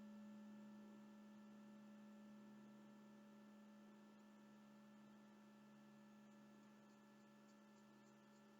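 Near silence with a faint, steady electrical hum that fades slightly.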